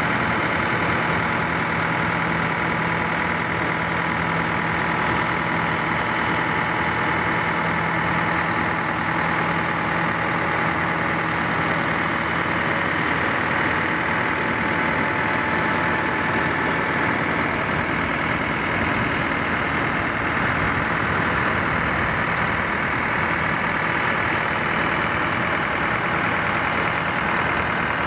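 Heavy diesel machinery running steadily: a continuous engine drone with a few constant hum tones and no change in pace.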